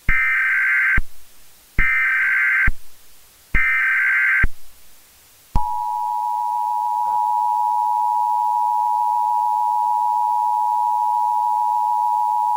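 Emergency Alert System tones: three short bursts of SAME digital header data, each about a second long, then about five and a half seconds in the steady two-tone EAS attention signal begins, announcing an emergency alert.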